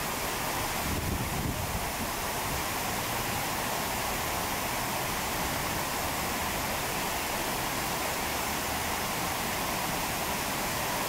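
Steady rush of flowing water, an even noise that does not change.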